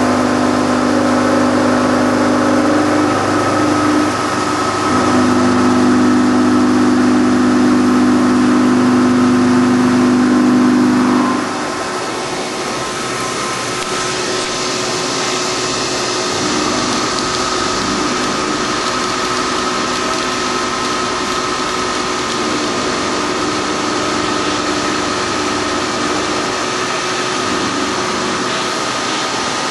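CNC milling machine finish-cutting the blades of a metal impeller with an end mill: steady spindle whine and cutting noise. A loud low hum stops suddenly about eleven seconds in, leaving the spindle tone and a hiss.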